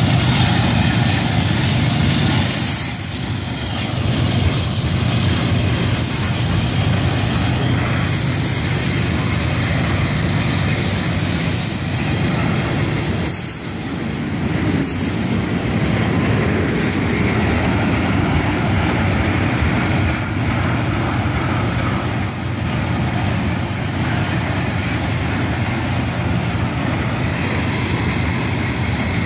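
Freight train of railroad tank cars rolling past: a steady rumble of steel wheels on the rails, with occasional clacks.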